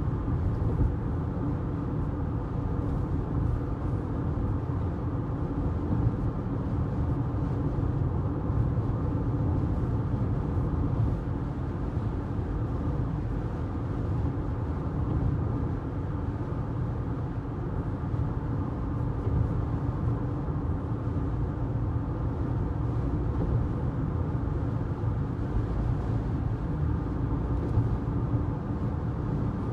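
Car cabin noise at highway speed: the steady low rumble of the engine and tyres on the road, heard from inside the car.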